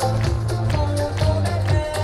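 Hula song played over outdoor loudspeakers, with a steady bass line and an even beat.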